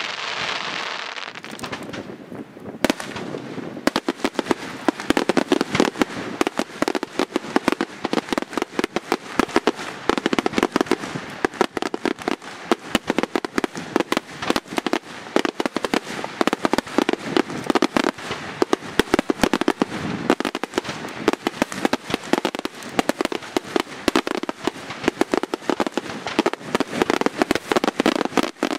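Aerial fireworks: the crackle of a burst shell fizzles out in the first couple of seconds, then from about four seconds in a rapid, unbroken run of bangs and crackling shell bursts.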